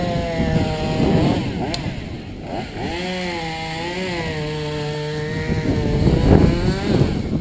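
Chainsaw running at idle, its pitch wavering gently.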